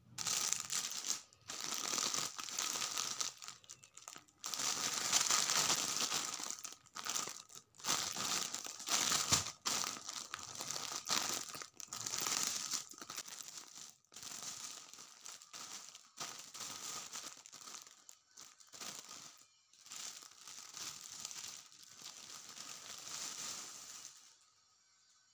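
Clear plastic polybag crinkling and rustling in irregular bursts as it is handled and opened around folded fleece blankets. It dies away about a second before the end.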